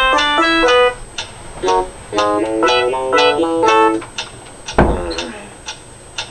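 Short phrases of a plucked banjo tune, broken by gaps in which a steady ticking runs at about two ticks a second: the ticking of a hidden pipe bomb. A single loud thump sounds about five seconds in.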